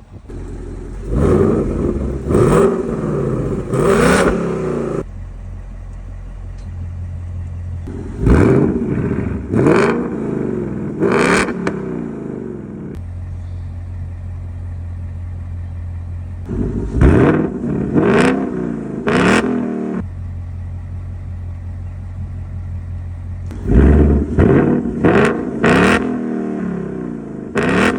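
Ford Mustang GT's 5.0 Coyote V8 breathing through catless Kooks long-tube headers into the H-pipe and factory active-valve exhaust, idling and revved in four sets of quick throttle blips, each rev rising and dropping sharply back to idle.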